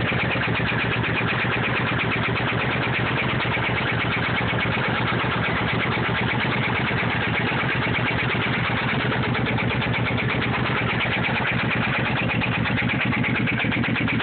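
Motorcycle engine running steadily with a fast, even ticking over the engine note: the ticking noise whose cause the owner cannot find.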